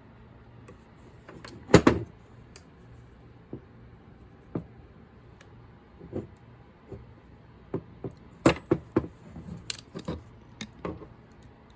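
Irregular clicks and knocks of small hard parts being handled, as the spray gun's pressure tube and its fittings are taken off and turned around. The loudest knock comes about two seconds in, with a quicker run of clicks near the end.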